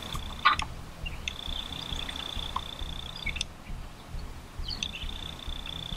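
A steady, high-pitched insect trill that breaks off and starts again a few times, over a low, uneven rumble. A short, sharp sound comes about half a second in.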